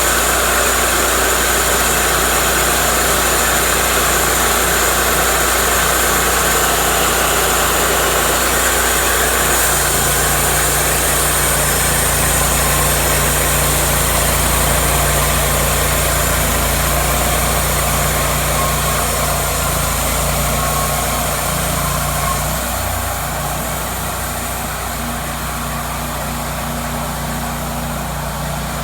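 Cook's MP-32 bandsaw mill running steadily, its engine humming under a dense hiss. The pitch shifts slightly about a third of the way in, and the sound eases a little about three quarters through.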